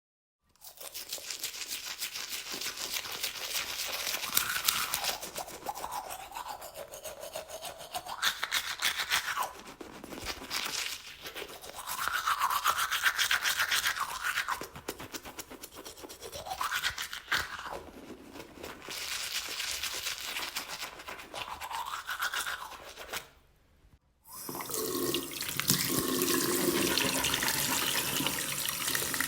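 Manual toothbrush scrubbing teeth with quick back-and-forth strokes, the tone of the scrubbing rising and falling as the brush moves around the mouth. It stops about 24 seconds in, and a tap starts running into the sink.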